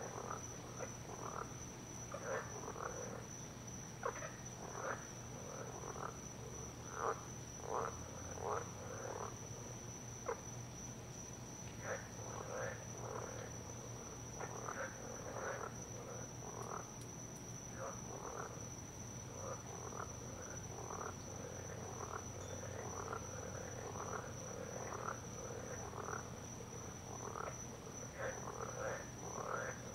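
A chorus of frogs calling: short croaking calls that repeat irregularly, sometimes several a second, over a steady high-pitched whine.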